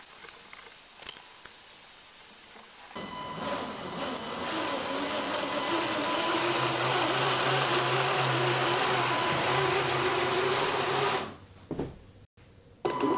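Electric drive motors and 3D-printed plastic gears of a four-wheel-drive cart running: a steady mechanical whine that starts about three seconds in, grows louder, and stops suddenly near the end.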